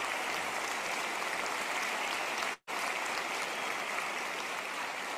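Audience applauding: a dense, steady clatter of many hands clapping, broken by a momentary drop-out about halfway through.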